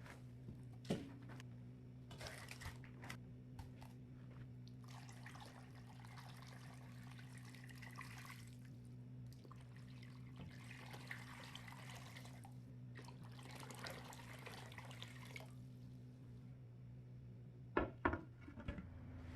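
Water running from a kitchen tap in three spells of a few seconds each, with a steady low hum beneath and a few sharp knocks near the start and near the end.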